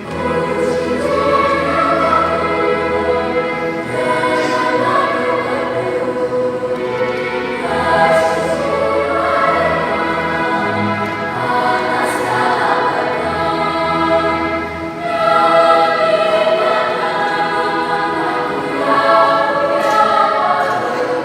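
Children's mixed choir singing in several parts, with sustained notes that change every second or two.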